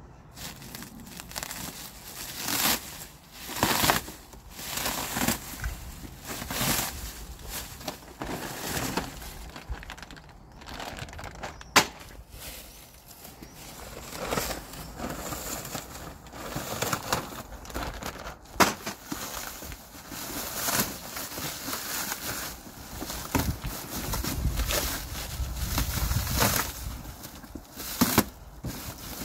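Black plastic stretch-wrap on a pallet being torn and pulled open by hand, crinkling and rustling in irregular bursts, with two sharp clicks along the way.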